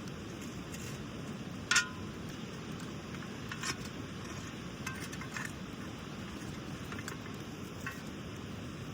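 Camp cookware and utensils clinking a few times, the loudest clink just under two seconds in with a brief ring, over a steady rush of water.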